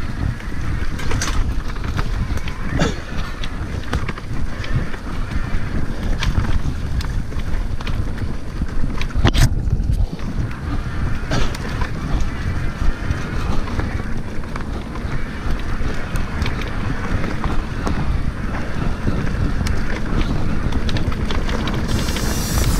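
Wind buffeting a helmet camera's microphone while riding an electric mountain bike, with a steady low rumble and frequent short knocks and rattles from the bike over a rough trail. Music comes in near the end.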